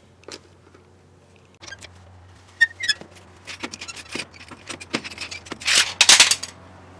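A scissor jack being cranked down under a lawn tractor, letting its weight back onto the wheel. It makes a run of sharp metal clicks and ticks, a short squeak, and a louder scraping rush near the end.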